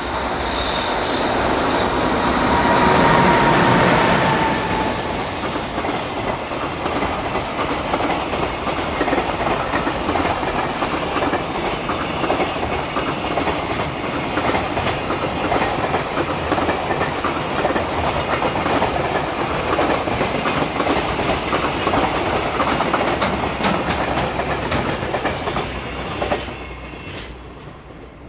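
A JR Freight EH500 AC/DC electric locomotive passes close by, followed by a long train of Koki container flatcars rolling past with a steady clickety-clack of wheels over the rail joints. It is loudest as the locomotive goes by, with a brief high whine, and drops off sharply near the end as the last wagon clears.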